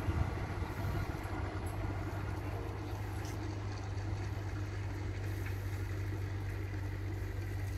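A steady low mechanical hum over a faint, even background noise, with no changes or distinct events.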